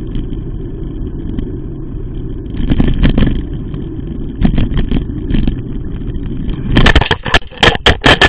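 Steady road and engine rumble of a moving vehicle, picked up by its dashcam, with a few knocks. About seven seconds in comes a loud run of crashing bangs as the vehicle collides and the camera is knocked loose.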